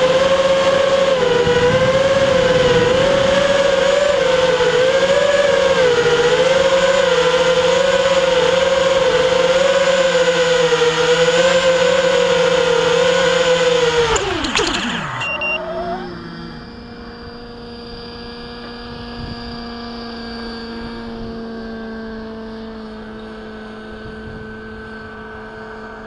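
FPV racing quadcopter's brushless motors and propellers whining close up, the pitch wavering with the throttle. About 14 s in they spin down with a sharp falling whine as the quad lands, and a fainter steady whine continues after that.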